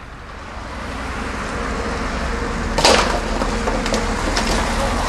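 Demolition excavator's diesel engine running and growing louder over the first two seconds. A loud crash of breaking building material comes about three seconds in, followed by a few smaller knocks of debris.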